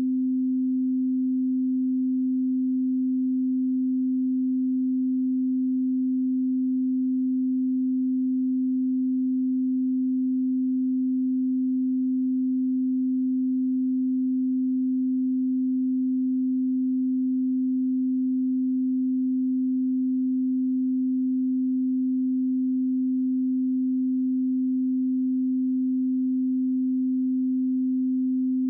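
A 258 Hz pure sine-wave test tone, held steady at one pitch and level throughout.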